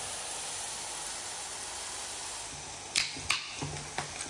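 Sliced pork belly sizzling steadily on a hot griddle, with a few sharp clicks about three seconds in.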